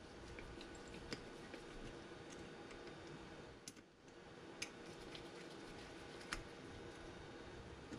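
Hex-bit hand driver tightening the bolts of a Chinese ATV clutch. The sound is faint, with a handful of sharp, separate metallic clicks as the bit seats in and turns the bolt heads.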